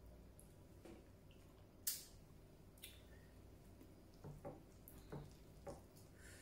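Faint sounds of a person eating by hand: a short sharp click about two seconds in, then several soft mouth sounds while chewing in the second half.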